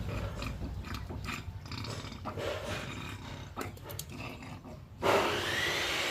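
Motorcycle engine running low, with scattered clicks and knocks. About five seconds in, a loud high whirring starts suddenly and rises in pitch.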